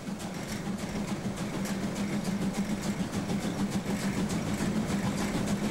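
DR class 01.5 steam locomotive working hard up a steep grade, heard from its cab. The running noise is steady with a constant low hum, and a fast, even pulse of exhaust beats runs through it.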